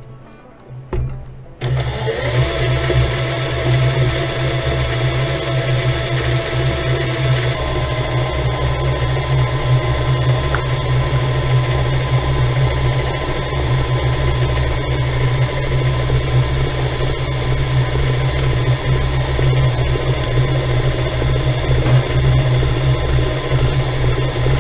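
Stand mixer starting up about a second and a half in, after a brief knock, then running steadily as its flat beater creams butter and sugar in the metal bowl.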